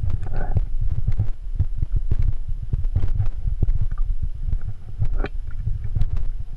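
A water bottle in a rucksack knocking and sloshing with the climber's movements: a run of irregular dull thumps, with sharper clicks and scrapes among them.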